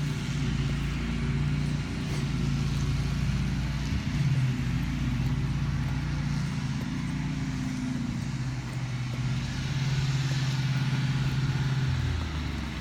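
Lawn mower engines running steadily, with a low hum that shifts slightly about four seconds in and dips near the end.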